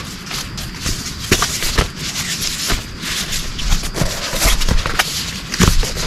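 Rustling in brush and leaf litter, broken by irregular sharp snaps and knocks, as of someone moving about and handling sticks or branches.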